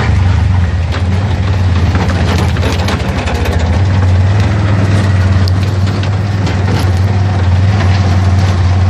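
Auto-rickshaw's small engine running steadily as it drives, a constant low hum, with scattered clicks and rattles over it.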